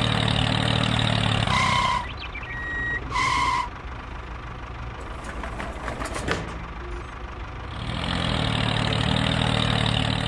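Mini tractor engine running steadily, with two short beeps about a second and a half apart. It drops away to a low rumble with a few clicks in the middle, then comes back up near the end.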